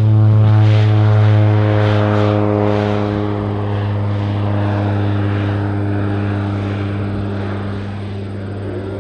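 de Havilland Turbo Beaver's turboprop engine and propeller at takeoff power as the amphibious-float plane lifts off and climbs away: a steady drone with a strong low tone, loudest about half a second in and slowly fading as it draws off.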